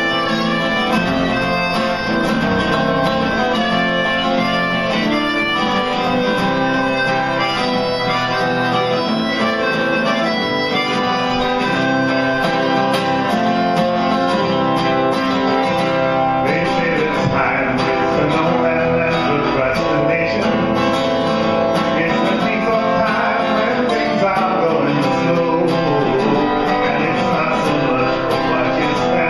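Instrumental break in a blues-folk song: acoustic guitar strummed under a neck-rack harmonica. The harmonica's notes waver and bend more from about halfway through.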